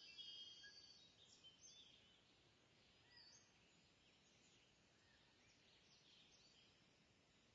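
Near silence: faint room tone with scattered faint high bird chirps, a little busier in the first second or so.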